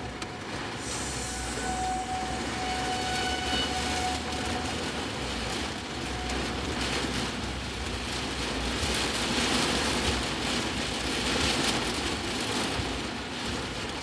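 Cabin noise of a car on the move in heavy rain: a steady low rumble under the hiss of rain and wet tyres, the hiss swelling about nine to twelve seconds in.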